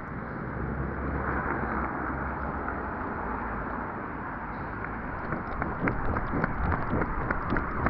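Wind rumbling over the camera microphone, with quick thuds about three a second from about halfway through, like running footsteps.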